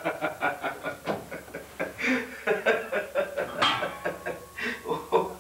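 A man laughing: a long run of short, repeated chuckles.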